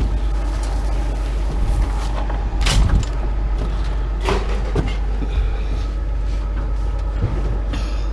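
Steady low rumble of a running vehicle engine, with a few scattered knocks and clanks of metal, the clearest a little under 3 seconds in and two more near the middle.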